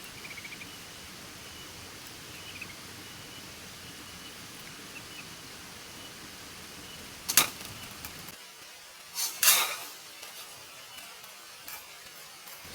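Faint short bird chirps over a steady outdoor hiss with a thin high insect-like tone, broken by a sharp loud crack about seven seconds in and a louder, rustling noise burst about two seconds later.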